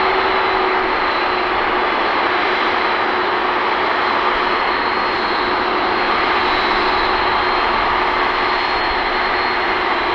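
Boeing 747-400ER's four turbofan engines running at low taxi power as the jet taxis: a steady, unchanging jet roar with a constant high whine over it.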